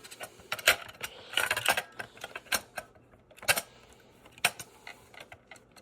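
Irregular plastic clicks and knocks as a System Sensor PC2R horn strobe is handled and pushed onto its mounting bracket, in small clusters about a second apart.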